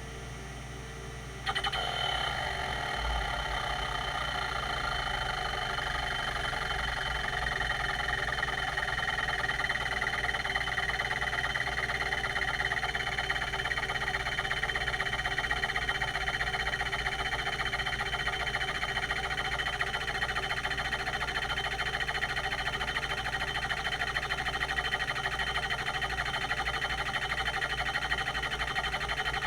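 Quantum Q540 hard drive, with a rotary voice-coil actuator, running at a low steady hum, then about a second and a half in jumping to a louder, continuous, rapid mechanical chatter as the heads start seeking nonstop, over the spindle's whir.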